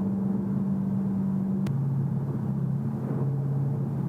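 2014 Shelby GT500's supercharged 5.8-litre V8 running at steady revs, a steady low drone. A little less than halfway through, a click comes and the drone drops at once to a lower steady pitch.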